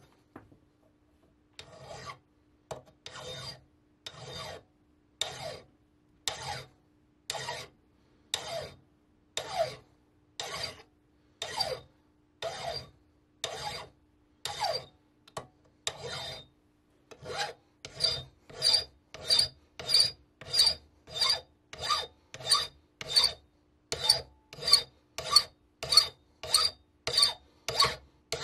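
Hand file rasping on the casting gate of a flintlock feather spring held in a vise, in even back-and-forth strokes about one and a half a second. The strokes begin a couple of seconds in and grow a little quicker and louder about two-thirds of the way through.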